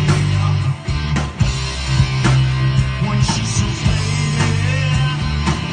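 A rock band playing live through a PA: distorted electric guitars, a bass guitar and a drum kit, with a strong bass line and regular drum hits.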